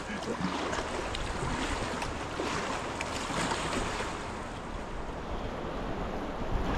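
Fast river water rushing over a shallow riffle around an inflatable kayak as a steady hiss, with low wind rumble on the microphone growing toward the end.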